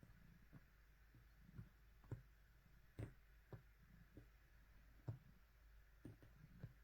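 Faint, soft taps and clicks, roughly two a second and uneven: a cat kneading with its paws.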